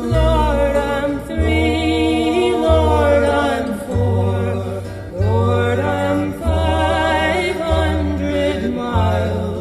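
Vocal music playing on the car's audio system inside the cabin: choir-like singing over a deep bass line whose notes change about once a second.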